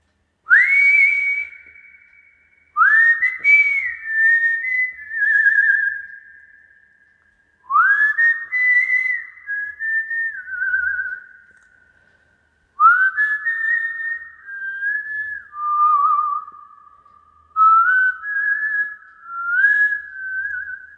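A man whistling a slow melody in five long phrases with short breaks between them. Each phrase opens with a quick upward slide, and some held notes waver.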